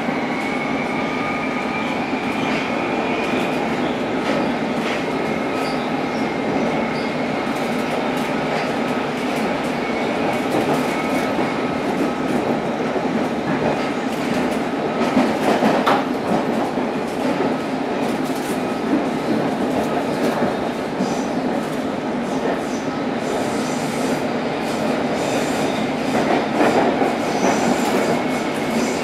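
Cabin sound of a London Underground S Stock train running between stations: a steady rumble of wheels on rail, with a faint rising whine in the first few seconds. Louder clattering comes in twice, about halfway through and near the end.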